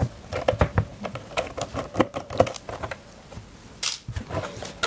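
An uneven run of small, sharp plastic clicks and taps as fingers work at the corner of a keyboard controller's plastic case and its rubber foot pad. The clicks pause briefly, then a louder click comes about four seconds in.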